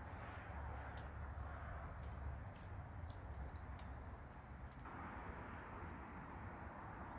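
Faint light clicks and rustling as a small steel long-spring trap and its chain are hung among pine branches, over a low steady rumble. A couple of short high bird chirps come in the second half.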